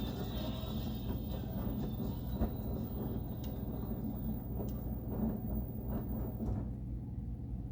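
LG commercial washing machine running with a steady low rumble and hum, with faint scattered knocks from the drum.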